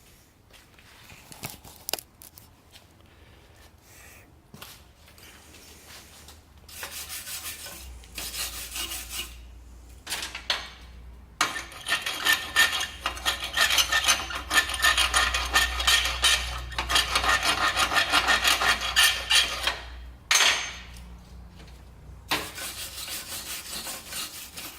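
Rapid back-and-forth scraping of a wire brush scrubbing slag off a freshly laid flux-core weld bead. It comes in three bursts, the longest and loudest in the middle.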